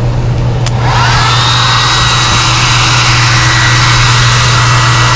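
Hair dryer switched on about a second in: its motor whine rises quickly, then holds steady over a strong rush of blowing air. A steady low hum runs underneath.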